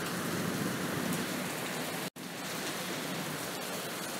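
Steady recorded rain ambience, an even hiss of rainfall, with a split-second dropout to silence about two seconds in.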